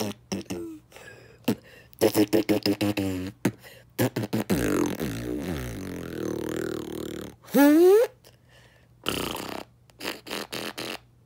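A person beatboxing with the mouth and voice: quick stuttering clicks and short pitched vocal bursts, a long wavering vocal sound in the middle, and a loud rising vocal sweep about eight seconds in.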